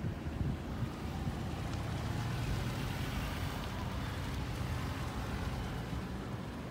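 A motor running steadily, a low rumble with a hiss over it that swells a little in the middle and eases off toward the end.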